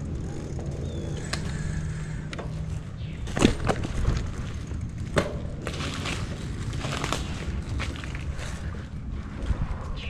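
Riding noise from a moving bicycle: a steady rumble of tyres and wind on the microphone, broken by a string of sharp clacks and rattles as the bike jolts over bumps. The loudest clack comes about three and a half seconds in.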